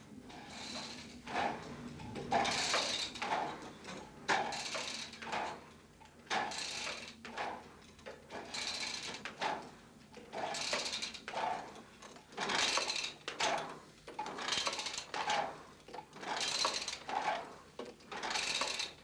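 Rowing exercise machine worked in steady strokes, its mechanism giving a rush of noise with each pull about every two seconds.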